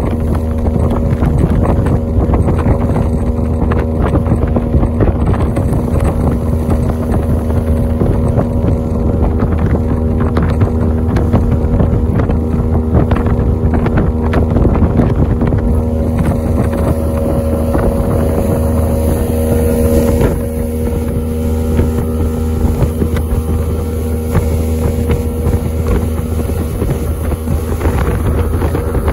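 Bass boat's outboard motor running steadily at planing speed, with the hull knocking over lake chop, rushing water and wind buffeting the microphone. About twenty seconds in the engine note shifts and the overall level drops slightly.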